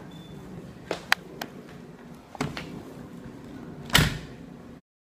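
Handling knocks from a cardboard diaper box being moved about: a few sharp clicks and taps, then one loud thump about four seconds in. The sound cuts out just before the end.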